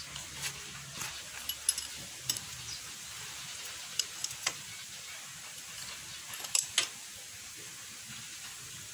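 Scattered sharp metallic clicks and clinks of a wrench and the steel oil drain plug on the motorcycle's engine case as the plug is threaded back in and tightened, over a steady hiss.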